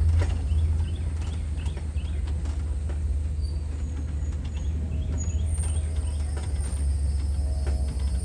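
Open-air safari truck running at a low, steady rumble as it drives a dirt track, with light knocks from the ride and a few faint bird chirps.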